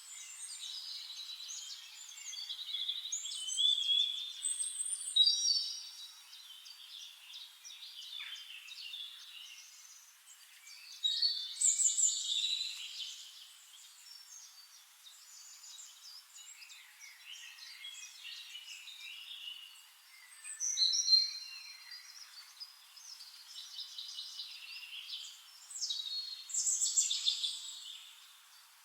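Several birds singing and chirping together in a dawn chorus, overlapping high chirps, trills and whistles that swell into louder bouts a few times and then thin out.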